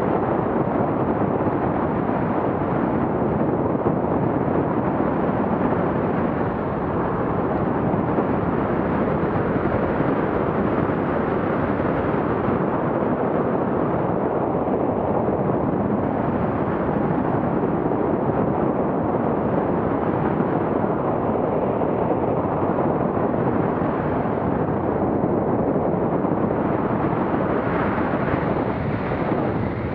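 Steady wind rush buffeting the microphone of a camera on a tandem paraglider in flight.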